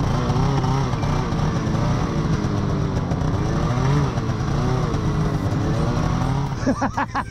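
Snowmobile engine running at low speed, its note wavering up and down as the throttle is worked; near the end the engine note changes and drops.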